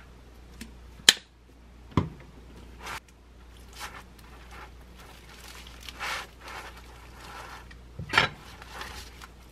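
Hands working a bread-roll sandwich on parchment paper. A sharp click about a second in and a knock just after come from handling the sauce squeeze bottle. Then the crusty roll rustles and crackles against a knife and the paper as it is folded in half, with a louder crackle near the end.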